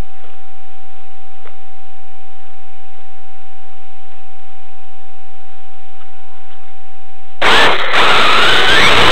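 A steady electronic hum with a few faint ticks while the radio-controlled car sits still. About seven seconds in, the car's Novak HV Pro 5.5 brushless electric motor comes in loud, its whine rising and falling as the car drives off, with drivetrain and tyre noise.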